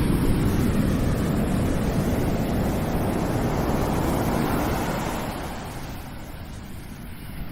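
Ocean surf breaking on a beach, a steady rushing wash that fades as the wave draws back about five seconds in. Wind rumbles on the microphone.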